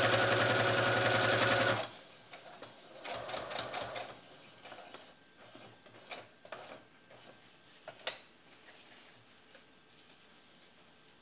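Brother XR3140 computerized sewing machine stitching at speed, its needle strokes coming in a fast even rhythm, then stopping just under two seconds in. After that only quiet fabric handling is heard, with a few light clicks.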